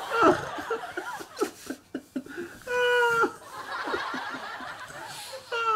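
People laughing, in short bursts and a couple of drawn-out cries.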